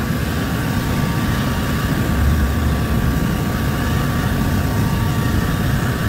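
Handheld electric heat gun running steadily, its fan blowing hot air with a steady whine as it heats a dented plastic car bumper to soften it.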